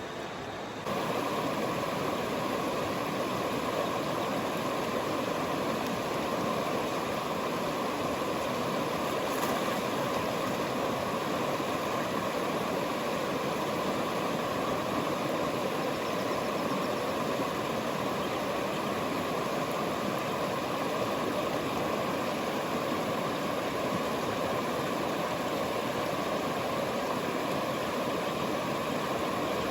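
Rushing river water: a steady, even flow of noise that grows louder about a second in and then holds.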